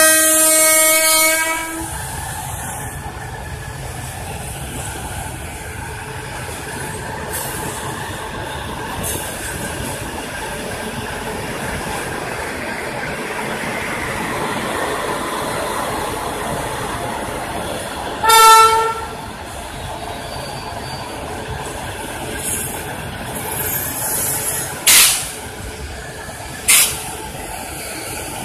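Indian Railways WAP-7 electric locomotive sounds a loud horn blast at the start, then stands running with a steady hum. About two-thirds of the way through comes a second, shorter and higher horn blast, and near the end two short, sharp sounds.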